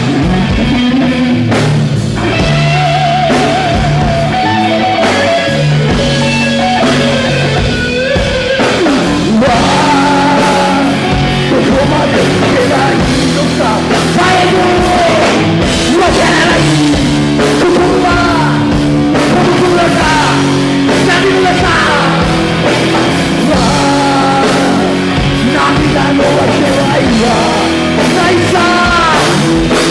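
Rock band playing live: electric guitar, bass and drums, with a vocalist singing over them.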